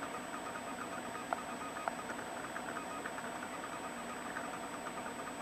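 Faint steady hum and hiss with a thin high whine, broken by two soft clicks a little over a second and about two seconds in.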